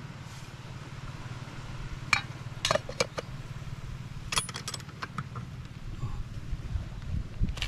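A few short clinks and knocks of dishes and utensils being handled as a meal is served, scattered over several seconds, over a steady low hum.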